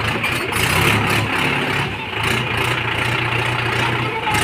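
Mahindra tractor's diesel engine running steadily under load, a low even hum, as its rear wheels dig into loose dirt and its front wheels lift off the ground.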